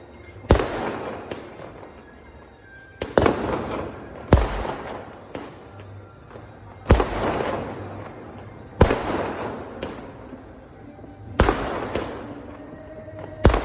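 A series of sharp, loud bangs, one every one to two and a half seconds with a few smaller ones between, each trailing off in a long rumbling echo.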